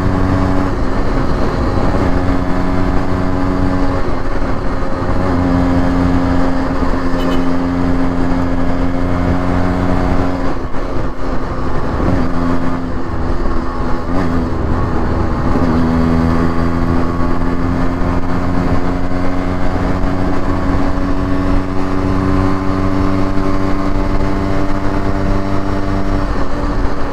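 Yamaha RX135's two-stroke single-cylinder engine running at highway speed, heard from on the bike. The steady engine note breaks up briefly about four seconds in and again for several seconds near the middle as the throttle eases, then settles back to a steady cruise.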